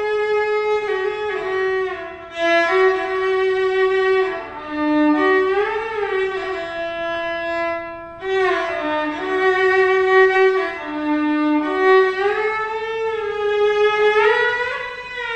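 Solo violin playing a slow single-line melody with sliding notes and vibrato, with two short breaks between phrases.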